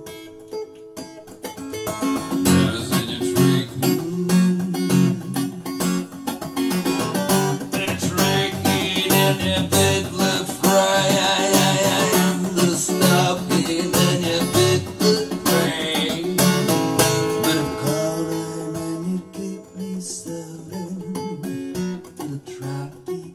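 Background music: a song on strummed and plucked acoustic guitar.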